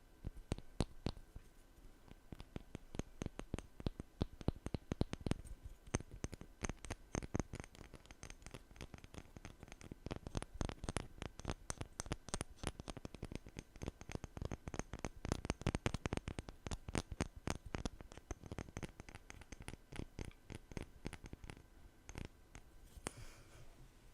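ASMR tapping and scratching: a fast, irregular run of sharp taps, several a second, with a brief softer rustle near the end.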